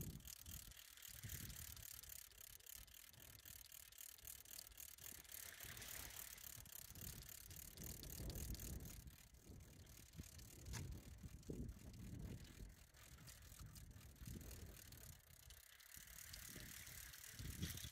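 Faint, rapid ticking of a fishing reel's gears as a beachcaster's line is wound in to retrieve the rig.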